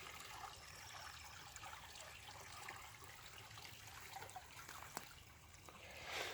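Faint trickling of a creek, with a single small click about five seconds in.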